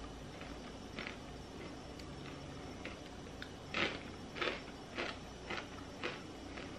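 Faint crunching of a rolled corn tortilla chip being bitten and chewed: a couple of soft crunches about a second in, then the crispest crunch just before the middle and a run of four more about every half second.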